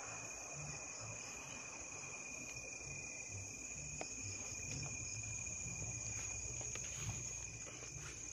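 Night insect chorus of crickets: a steady high-pitched trilling at two pitches, over a faint low rumble from passing traffic, with a few faint ticks.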